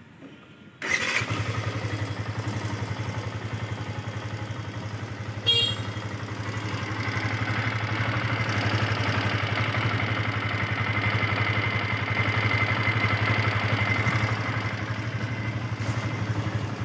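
Yamaha FZS V2's single-cylinder engine starting about a second in and then idling steadily with a clattering mechanical rattle, with one short sharp click about five seconds in. The mechanic puts the rattle down to loose tappets and a loose timing chain that need adjusting.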